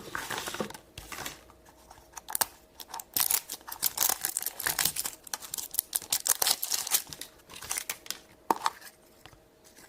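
Blind-bag toy packaging being crinkled and torn open by hand: a run of quick crackles and rustles, busiest from about three to seven seconds in.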